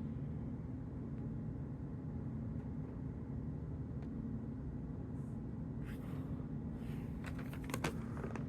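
Steady low hum with a few faint clicks and rustles about six seconds in and again near the end: small plastic Lego minifigure pieces being handled.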